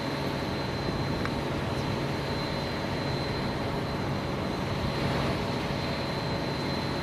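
Steady mechanical drone of an idling fire-rescue truck and its equipment, with a thin, steady high whine over it.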